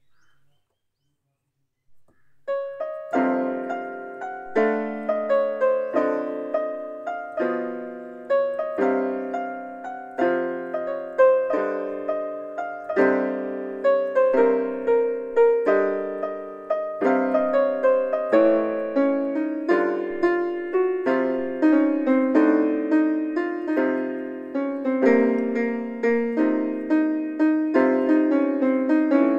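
Small portable electronic keyboard playing a bhajan tune with chords, the melody and chord notes struck and fading one after another. The playing begins about two and a half seconds in and then runs on without a break.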